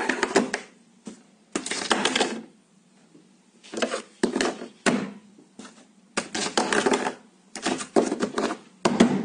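Plastic cable-grommet lid rattling and clattering against a wooden desk top as a cat paws at it, in short bursts every second or two.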